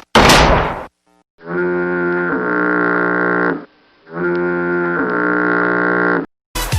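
A short, loud slam in the first second, then two long blasts of a fog-alarm horn, each about two seconds long and stepping down to a lower tone partway through.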